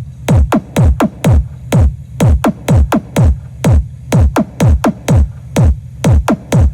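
Electronic dance music played loud on a mobile-disco sound system, driven by a heavy drum-machine kick at about three beats a second, its pitch dropping on every hit.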